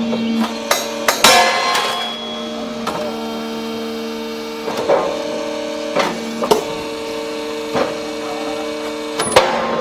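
Hydraulic rail-breaking machine running with a steady hum, with sharp metal clanks and bangs at irregular intervals as rail steel is broken and handled. The loudest is a ringing crash about a second in.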